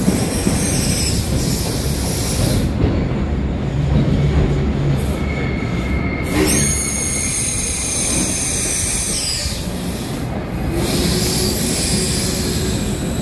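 Berlin U-Bahn subway train running through a tunnel, heard from an open-top car: a loud, steady rumble of wheels on rails. High-pitched wheel squeal comes in about six and a half seconds in, lasts about three seconds and falls away in pitch, with a fainter squeal near the end.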